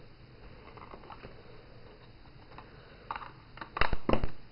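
Craft tools being handled on a desk: a few faint light taps, then, about three seconds in, a quick cluster of sharp clacks and knocks as the wooden ink blending tool is handled against the plastic Distress Ink pad.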